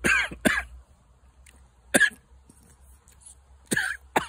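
A man coughing in short, sharp bursts: twice at the start, once about two seconds in, and twice close together near the end.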